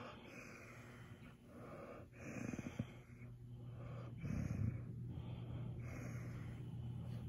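A German Shepherd puppy groaning and breathing heavily with contentment while being petted. There is a run of wheezy breaths about once a second, with deeper low groans about two and a half and four and a half seconds in.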